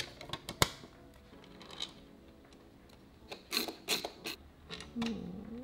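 Plastic light-switch cover plate being fitted by hand and its screws turned in with a hand screwdriver: a few sharp clicks at the start, then bursts of short ticks and scraping about halfway through. Faint background music plays underneath.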